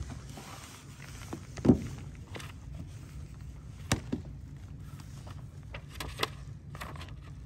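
A hardcover book is handled on a wooden shelf. There is a thump about a second and a half in, then a few sharp taps and clicks around four and six seconds in as the book is set down and its pages turned, over a steady low hum.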